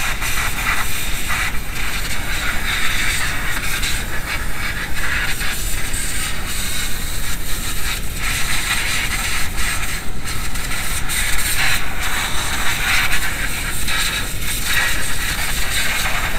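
Steady loud hiss of compressed air from a hand-held air tool worked on the diesel fuel line, with scattered light clicks, while the fuel system is purged of air.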